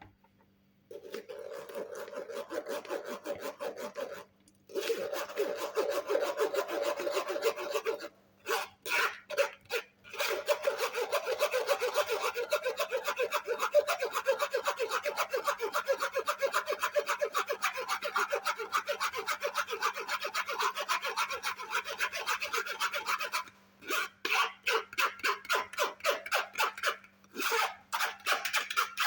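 Fast, rhythmic rasping strokes, as of something rubbed back and forth over a rough surface, with a couple of brief pauses; the strokes become more separate near the end.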